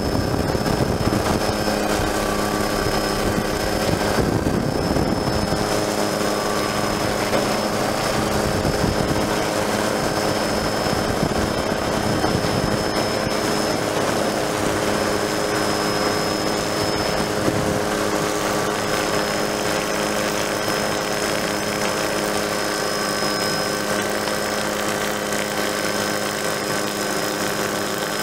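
Helicopter turbine and rotor running steadily, heard from on board, with a steady hum of several tones and a thin high whine above it.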